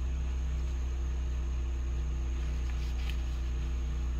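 Steady low mechanical hum, like a motor or engine running at an even speed. A brief faint higher sound comes about three seconds in.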